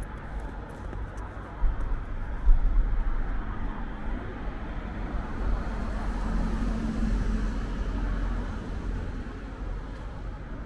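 Road traffic passing close by, over a steady low rumble. One vehicle's engine swells and fades about two-thirds of the way through, and there are two short knocks about two seconds in.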